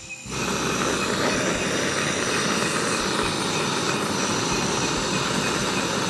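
A loud, steady rushing noise that sets in abruptly just after the start.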